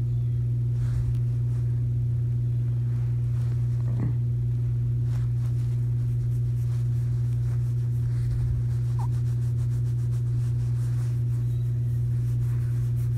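A steady low hum, with a few faint brief rustles.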